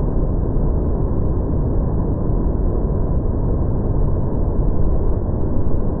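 Steady roar of a large waterfall in heavy flood flow, the water of Fukuroda Falls crashing onto the rock close by. The sound is deep and muffled, weighted to the low end with no hiss in the upper range.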